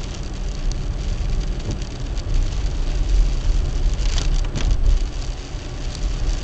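Car driving on a wet road in the rain: a steady low rumble with an even hiss of wet tyres and rain, and a few short sharp sounds about four seconds in.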